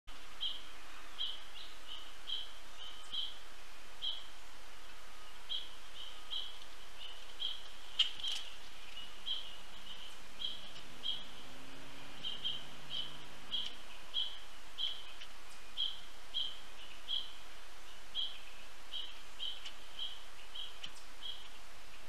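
A bird calling with a repeated short, high chirp, irregularly about one to two times a second, over steady outdoor background. There is a single sharp knock about a third of the way in.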